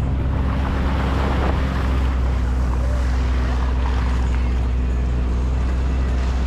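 A four-wheel-drive vehicle's engine running steadily at low speed, heard from inside the vehicle, with a rushing noise that swells twice.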